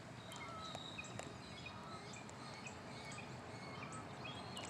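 Faint bird chirps, short and scattered, over a steady low background hum of outdoor noise.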